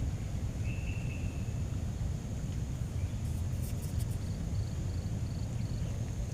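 Forest ambience: a steady low rumble under a thin high insect drone. A short bird whistle comes about a second in, a few sharp clicks come around the middle, and a run of five quick high chirps follows in the second half.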